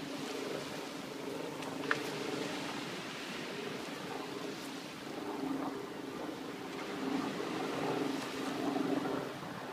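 Open shoreline ambience: a steady wash of wind and water with a low engine hum that swells and fades. A single short high chirp sounds about two seconds in.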